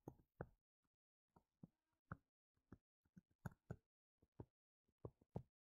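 Near silence with faint, irregular ticks and taps, about a dozen, of a stylus on a writing tablet as words are handwritten.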